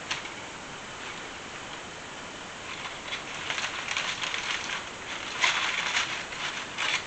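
A crisp baked crust crunching as it is cut into or bitten, in crackling bursts that start about three seconds in and are loudest near the end.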